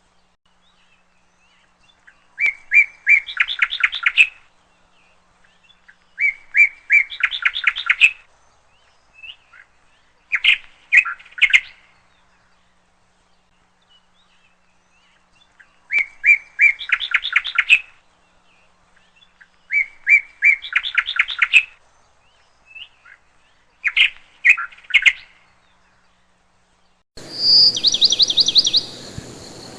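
A songbird singing the same short phrase over and over, a few clear notes running into a quick trill, each about two seconds long and repeated every four seconds or so. Near the end a steady hiss comes up with a different, higher-pitched song.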